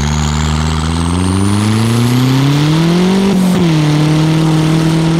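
Nissan D21 pickup's engine pulling under throttle, its pitch rising for about three seconds with a thin high whistle climbing alongside. About three and a half seconds in the revs drop sharply, then hold steady. The owner says it hits boost cut at full throttle because of a cracked vacuum line.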